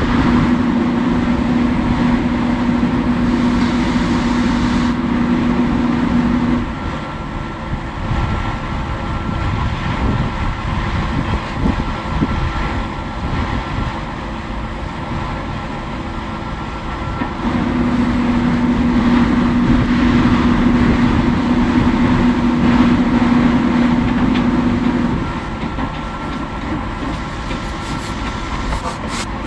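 A heavy engine running steadily, with a low rumble throughout. A steady hum grows louder for several seconds at the start and again for several seconds in the second half.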